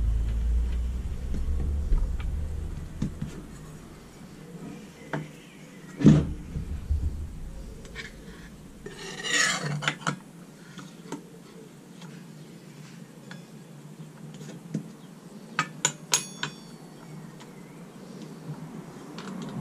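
Metal clinks and knocks from changing the blade on an Evolution 165 mm circular saw: the blade bolt is loosened with an Allen key and the steel blade and fittings are handled. A sharp knock, then a rattling scrape a few seconds later, and a quick run of ringing clinks near the end.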